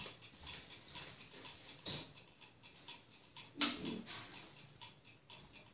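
Mechanical egg timer ticking steadily as it counts down the ten minutes of a face mask. A louder knock comes about two seconds in, and another with a short vocal sound a little past halfway.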